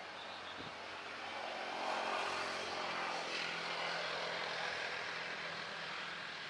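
Airliner's engines heard passing at a distance: a broad rushing noise with a faint steady tone underneath, swelling to its loudest about two seconds in and then slowly fading.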